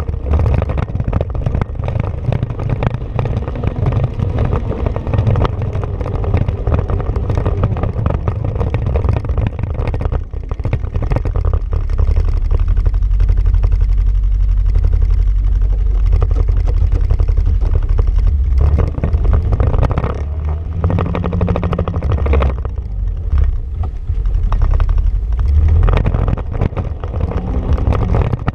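Honda Pioneer 500 side-by-side's engine running as it drives over a dirt trail, its pitch rising and falling with the throttle, with knocks and rattles from the rough ground.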